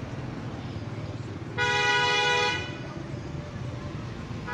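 A vehicle horn sounds once, a steady dual-tone honk about a second long, over a steady low background rumble.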